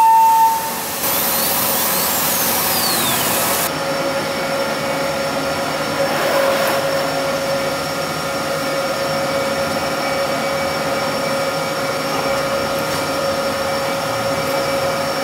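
CNC router machinery running steadily in a workshop, a constant hum and whine over a hiss, typical of the spindle and vacuum hold-down running. Within the first few seconds a high whine glides downward.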